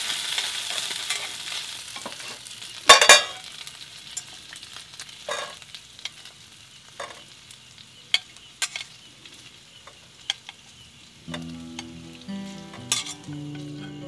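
Marinated meat sizzling in a metal pan on a portable gas stove, the sizzle fading over the first couple of seconds. Chopsticks then scrape and knock on the metal pan and bowl several times, loudest about three seconds in. Soft guitar music comes in near the end.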